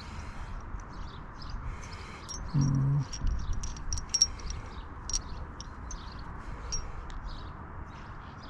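Small birds chirping repeatedly in the background. About a third of the way in, a short low buzz lasts roughly half a second and is the loudest sound, and a few sharp clicks follow.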